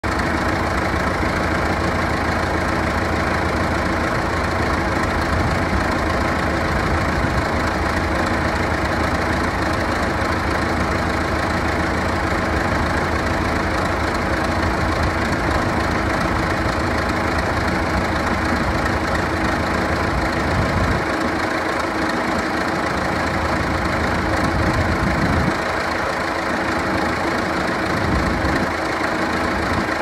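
1975 John Deere 450 crawler bulldozer's engine idling steadily.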